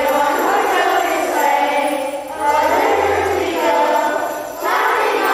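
A children's choir singing a Christmas song together, in phrases with short breaks about two seconds and four and a half seconds in.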